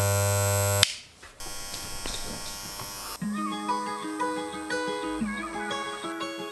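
A corded electric hair clipper buzzing loudly, cutting off suddenly just under a second in. Acoustic guitar music with plucked notes follows for the rest.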